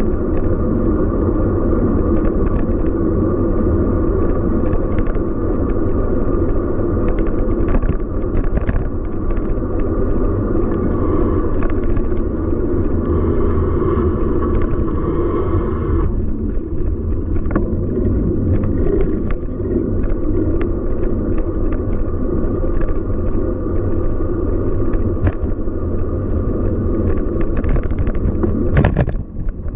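Steady low rumble of city street and traffic noise, with scattered short clicks and rattles and one sharper crack near the end.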